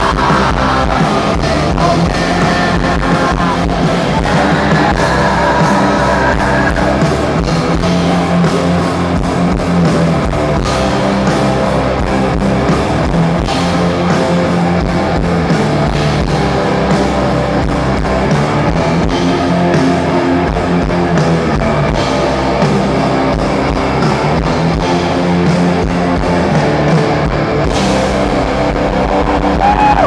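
Live alternative rock band playing loud on electric guitars, bass guitar and drum kit, with no break.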